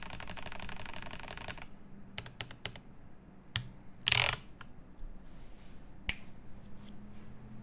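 A fast, even run of small clicks lasting about a second and a half, then a few separate sharp clicks and one louder, short scraping rustle about four seconds in.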